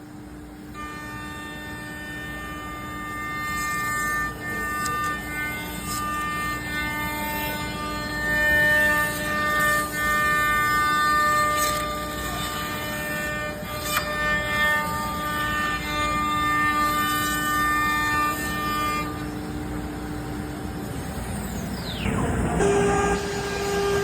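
CNC router cutting a wooden longboard deck: its stepper motors whine in several steady tones that shift pitch as the axes change speed and direction, over the running spindle. Near the end a high whine falls sharply in pitch and a lower steady hum starts.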